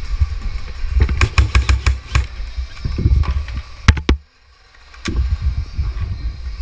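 Heavy rumble of wind or movement on the camera microphone, with a quick run of sharp clicks about a second in and two single clicks later, and a short quiet gap in the middle.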